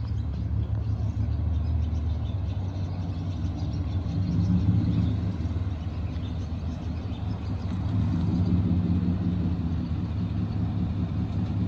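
Lifted Toyota Tundra's V8 exhaust running with a low, steady drone as the truck rolls slowly up at low speed, swelling louder twice with light throttle.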